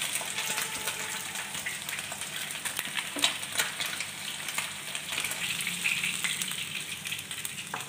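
Pieces of katla fish sizzling in hot mustard oil in a kadai. Scrapes and taps of a wooden spatula against the pan run through it as the fully fried pieces are lifted out, with a louder tap about three seconds in.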